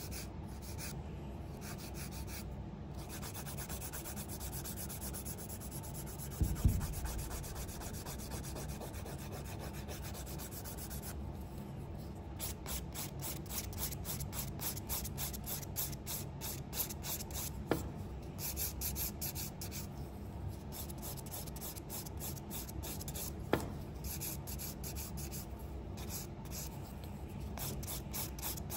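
Nail file rubbing back and forth over an acrylic sculptured nail, shaping the acrylic near the cuticle. About twelve seconds in, the rubbing turns into quick, even strokes. There is a single thump about six seconds in and two short clicks later.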